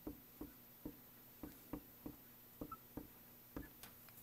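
Faint, short taps and ticks of a marker tip on a glass lightboard as a word is written out, about two or three a second at an uneven pace.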